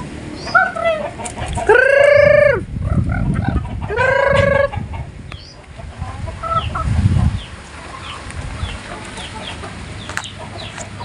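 Free-ranging village chickens calling: two loud drawn-out calls under a second each, about two seconds apart, then scattered clucks and many short high cheeps.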